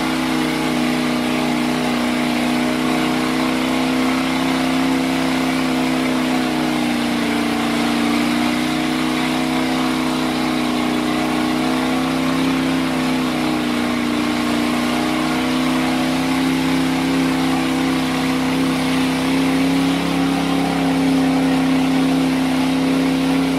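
Pickup mud truck's engine held at steady high revs as it churns through a deep mud pit, the pitch only drifting slightly, with a hiss of spraying mud and water over it; the sound cuts off suddenly at the end.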